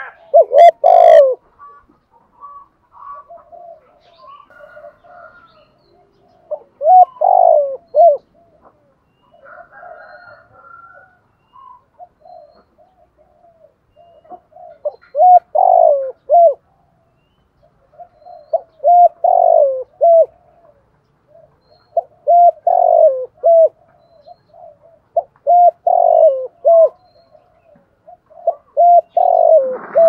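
Spotted dove cooing: loud phrases of a few coos repeated every three to four seconds, with softer coos in between.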